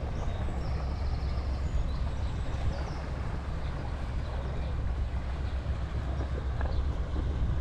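Steady low rumble from riding a bicycle along a narrow paved path: wind on the microphone and tyres rolling, with a few faint bird chirps.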